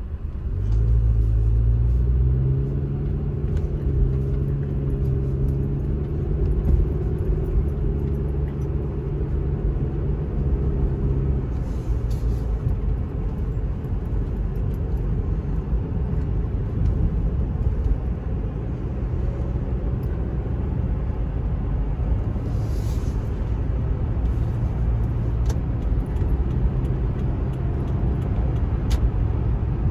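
Car pulling away from a standstill, heard from inside the cabin: the engine note climbs steadily for about ten seconds, then gives way to a steady low road and tyre rumble at highway speed.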